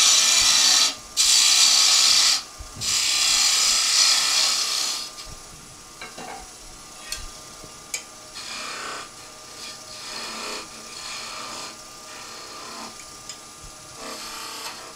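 Turning tool cutting into a thin wooden spindle spinning on a wood lathe, taking away waste: three loud, hissing cuts in the first five seconds, then lighter, shorter cuts with a few small clicks over the faint hum of the lathe.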